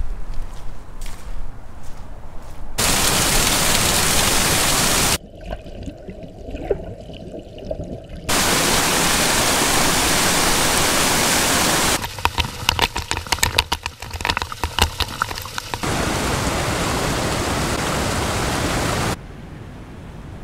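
Small mountain waterfall rushing down a rocky gully, a steady full rush of water that cuts in and out abruptly several times. In the quieter gaps between these stretches there is a run of rapid clicks.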